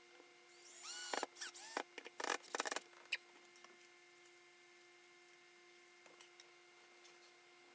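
Faint burst of short, high squeaks and scrapes, some rising in pitch, from plastic pipe and fittings rubbing as they are worked by hand, lasting about two seconds after the first second. A faint steady hum runs beneath.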